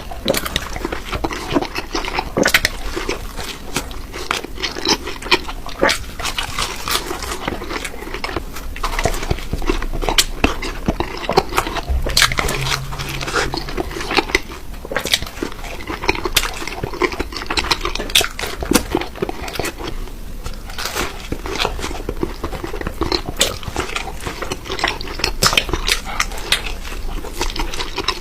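Close-miked eating: dense, rapid crunching and chewing clicks.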